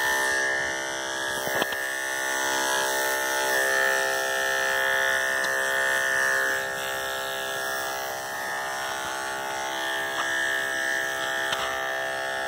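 Andis electric dog clippers running with a steady buzz as they cut through a miniature schnauzer's coat.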